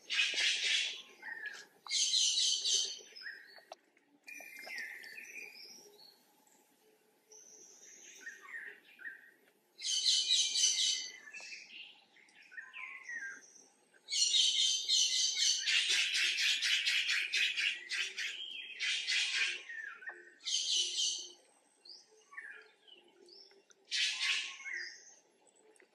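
High-pitched chirping squeals come in bursts of one to three seconds, about six times, with quieter gaps between them. The longest run is near the middle.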